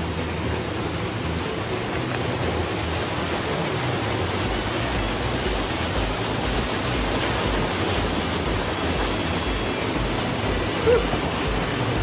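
Small waterfall pouring into a rock pool: a steady, even rush of falling water. A brief louder sound stands out near the end.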